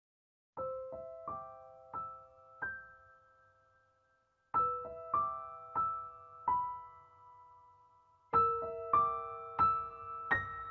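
Background music: a slow, gentle piano melody, notes struck in three short phrases that each ring and fade away.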